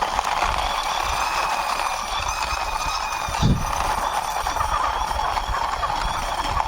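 Plastic wheels of a small toy vehicle rolling steadily as it is pushed along by hand, with a continuous grinding rumble, a few light bumps and a louder knock about three and a half seconds in.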